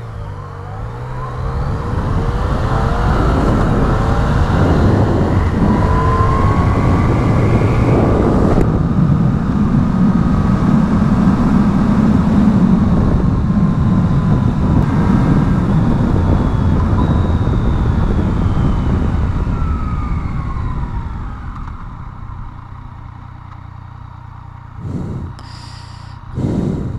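Yamaha FZ-09's inline-three engine pulling hard, its pitch sweeping up and down through the gears under heavy wind rush. After about 21 seconds it drops back to a quieter steady run, like idling, with two brief bursts near the end.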